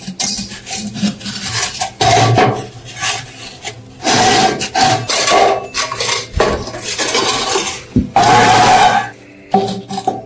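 Repeated rasping, rubbing strokes of hand work on metal, each lasting a second or two, easing off near the end.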